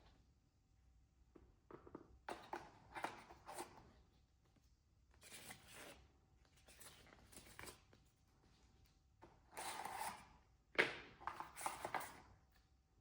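Hands unboxing packaging and a plastic tool: a series of short rustles, scrapes and light clicks, with a longer rustle about ten seconds in.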